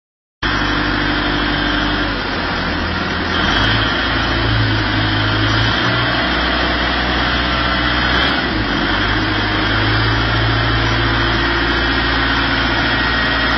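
Forklift running steadily while its rotating paper roll clamp turns a large paper roll, a constant machine hum whose low note shifts about three and a half seconds in and again near nine seconds.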